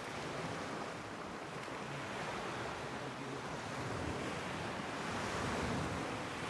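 Steady rush of sea surf along the shore, mixed with wind buffeting the microphone.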